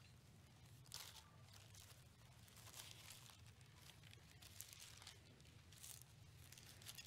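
Faint rustle of thin Bible pages being turned by hand, a few soft page flips, over a low steady room hum.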